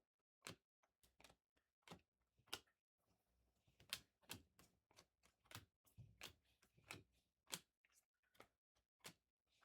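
Faint, irregular clicks and snaps of chromium trading cards being flipped through by hand, about two a second, coming a little faster in the middle.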